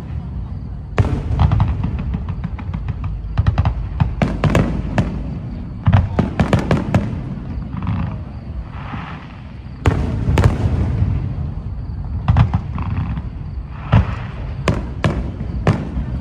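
Aerial fireworks display: repeated sharp bursts of shells going off overhead, some single loud reports and some quick crackling runs, over a continuous low rumble.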